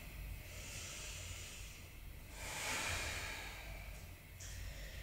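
A woman's slow, audible breathing: two long, soft breaths and a shorter one near the end.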